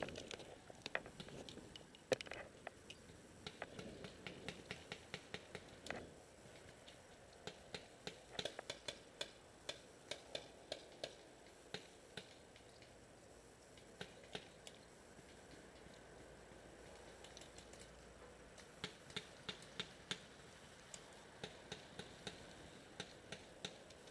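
Paintball markers firing: sharp pops, some single and others in quick strings of about three or four a second.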